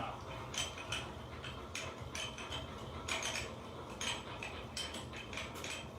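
Irregular light metallic clicks and clinks of tools being handled and parts worked at a milling machine, over a low steady hum.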